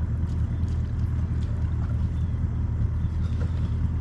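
A boat motor running steadily, a constant low hum with no change in speed.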